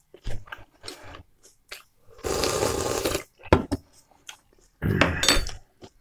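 Close-up eating sounds: chewing, a metal spoon clicking against a glass bowl of borscht, and two loud, noisy mouth sounds lasting about a second each, the first about two seconds in and the second near the end.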